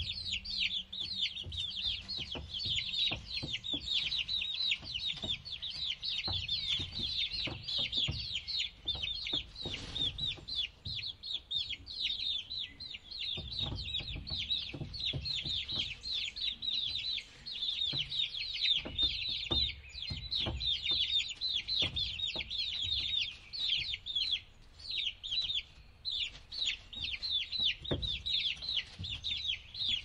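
Chicks peeping continuously: a rapid stream of short, high-pitched, falling cheeps, with occasional low clucks from hens beneath.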